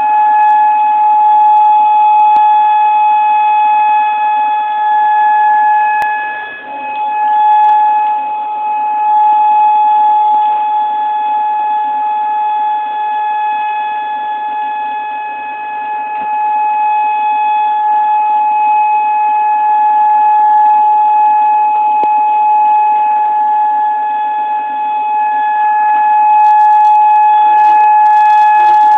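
Outdoor tornado warning siren sounding one continuous steady tone, its loudness slowly swelling and fading.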